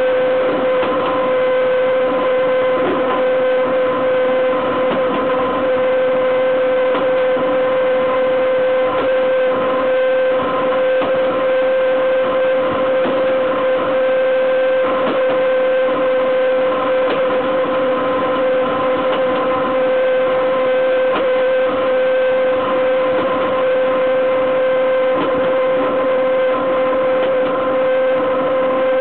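Wheels and running gear of a BDZ Cargo class 43 electric locomotive rolling on the rail at speed under a 1308-ton train. A steady running noise with a constant high whine and many small rapid clicks.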